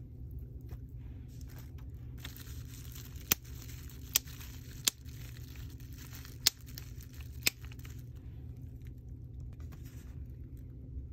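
Bubble wrap and plastic packaging crinkling and rustling as it is handled, with five sharp clicks standing out in the middle of it. A steady low hum runs underneath.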